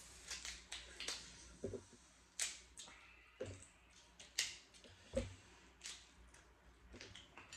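Seafood eating sounds: crab leg and crawfish shells cracking and snapping apart by hand, a string of sharp, irregular clicks and cracks, a few of them louder.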